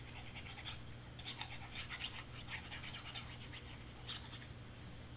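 Squeezed plastic glue bottle with a precision tip sputtering and crackling as glue and air are pushed out, in quick runs of small crackles over a low steady hum. A sharp click comes near the end.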